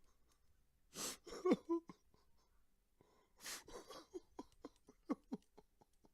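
A man crying, sobbing in sharp gasping inhales. Each inhale is followed by short sobs that fall in pitch, and after the second gasp they come in a quick run of about four a second.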